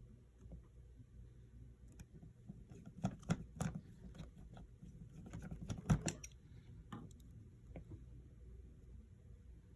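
Small tools and metal cover brackets clicking and tapping while an iPhone's internal parts are fitted back together, in two short clusters about three and six seconds in, with a few single clicks after.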